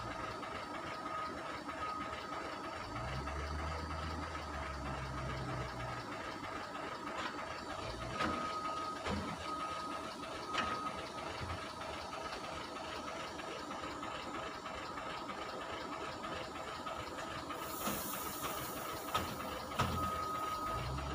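Wheel loader's diesel engine running as it tips stone chips from its bucket into a lorry's tipper body, with a steady rushing hiss of the chips. Near the end a louder, sharper hiss as the gravel pours out. A beeping tone comes and goes.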